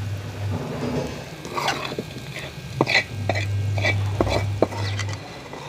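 Metal spoon clinking and scraping against cookware as cooked okra sabzi is handled, a string of short sharp clinks. Under it runs a low steady hum that drops out about half a second in and returns about three seconds later.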